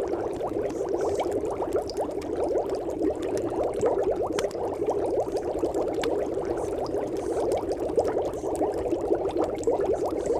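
Steady bubbling, watery sound, muffled and narrow in pitch, made of many tiny rapid pops, with scattered faint clicks.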